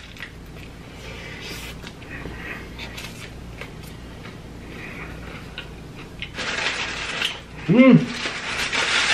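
Faint scattered clicks, then about six seconds in a loud, crackly crinkling of a paper taco wrapper being handled and opened. A short hum rises and falls in the middle of the crinkling.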